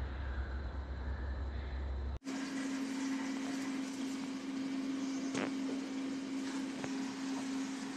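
A low rumble stops at a sudden cut about two seconds in. What follows is a steady mechanical hum with a hiss above it and a few faint clicks.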